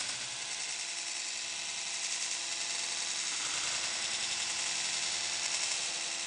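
K'nex launch mechanism's plastic gears running, giving a steady, light whir with a fine rapid ticking texture.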